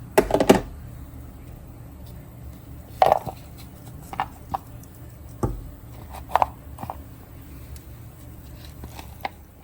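Coconut pieces and an airtight storage box being handled, making scattered knocks and clatters. The loudest come in a quick cluster at the start, followed by single knocks every second or so.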